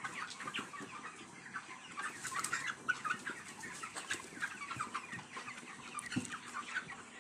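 A large flock of broiler chickens peeping and clucking all together while being fed, with a sharp knock about three seconds in.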